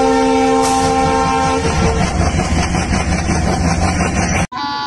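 A train horn sounding a steady chord of several notes for about two seconds over the rumble of a train, the rumble carrying on until it cuts off abruptly near the end. Right after the cut a brief horn note starts.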